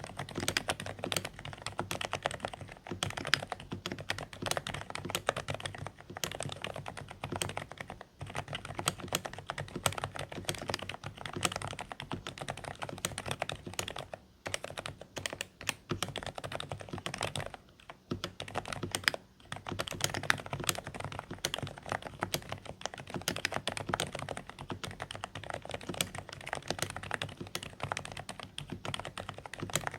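Continuous fast typing on a Dareu A104 Pro mechanical keyboard with silent beige switches: quiet, slightly muffled keystrokes that pause briefly a few times around the middle.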